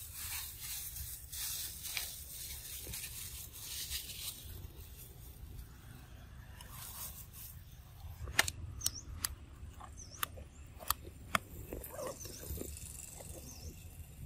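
Macaques feeding on fruit among dry leaves: crackly rustling and chewing, then a run of sharp clicks and taps from about eight seconds in.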